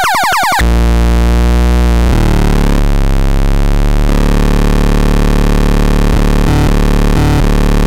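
Synthesized electronic sounds: a fast run of falling chirps cuts off less than a second in and gives way to a loud, low buzzing drone full of overtones, whose tone shifts and wavers for several seconds.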